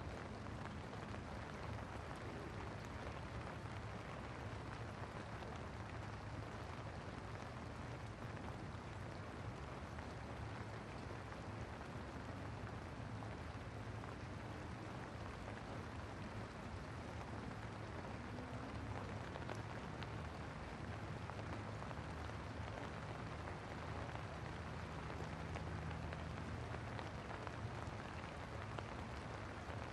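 Steady rain falling on wet paving, an even hiss with no pauses, with a low steady hum underneath.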